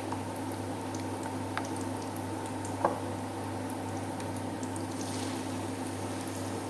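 Battered banana blossom deep-frying in hot oil, sizzling and bubbling with scattered small crackles. There is one sharper click about three seconds in.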